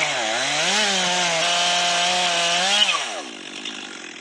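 Stihl MS362 two-stroke chainsaw on an Alaskan chainsaw mill running at high revs, dipping briefly under load early on and recovering. About three seconds in the throttle is released and the revs fall away to idle.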